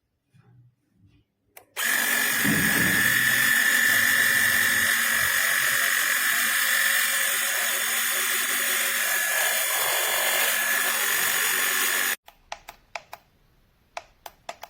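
Wistrue battery-powered mini air compressor running steadily for about ten seconds with a high whine, then cutting off abruptly; a handful of sharp clicks follow.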